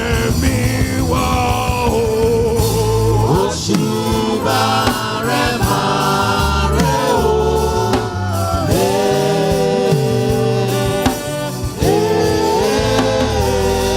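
Gospel praise song: voices singing sustained melody lines over instrumental backing with a steady bass.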